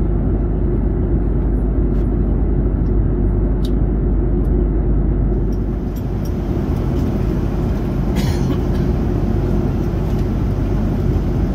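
Steady low roar of a jet airliner's cabin at cruise, heard from a window seat beside the engine. A brief scratchy noise about eight seconds in.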